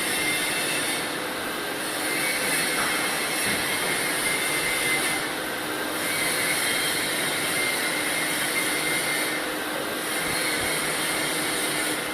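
Steady hiss of a TIG welding arc. The high part of the hiss fades briefly about every four seconds.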